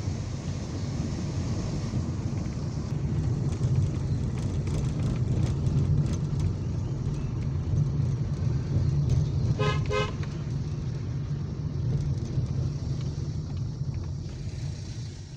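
Car driving on a narrow road, heard from inside the cabin: a steady low rumble of engine and tyres, with one short car horn toot about ten seconds in.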